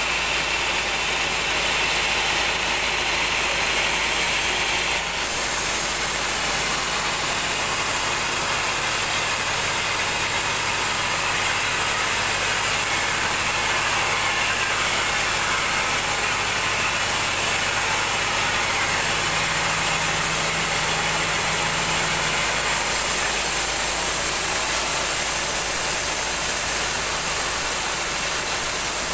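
A 36-inch band sawmill's blade running steadily through a large mahogany plank, with its drive machinery, making an even, continuous saw noise. A high-pitched whine within the noise drops away about five seconds in.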